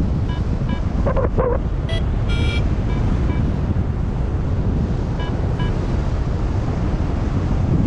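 Airflow buffeting a GoPro microphone in flight under a paraglider, a steady rushing rumble. Over it come faint short electronic beeps in pairs every few seconds, typical of a paragliding variometer.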